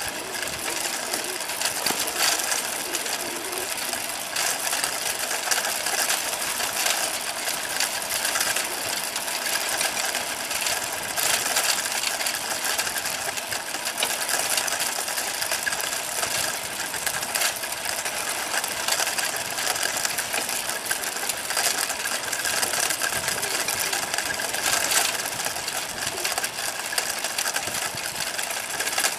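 Bicycle rolling along an asphalt path: a steady, fast mechanical rattle and clicking from the moving bike, with tyre noise on the pavement.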